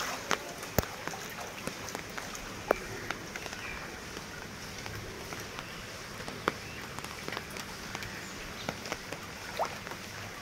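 Rain falling on standing floodwater: a steady wash of noise with scattered sharp taps of single drops.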